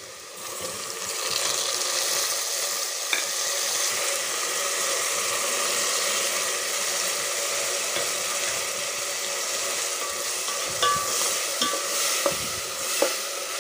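Shallots frying in hot oil in a metal pot, sizzling; the sizzle swells about a second in as ground tomato, chopped tomato and green chillies go into the oil. Near the end the spatula ticks and scrapes against the pot as the mixture is stirred.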